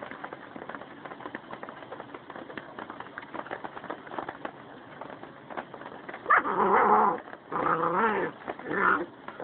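Wolves at play: a black wolf and its half-wolf cub scuffling, with light scattered clicks for the first six seconds, then three loud, wavering vocal cries, about six, seven and a half, and nearly nine seconds in.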